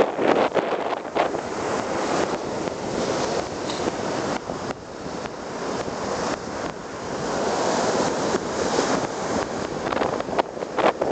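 Rough sea surf breaking and washing up a sandy beach, with strong wind buffeting the microphone in gusts, most sharply near the start and the end.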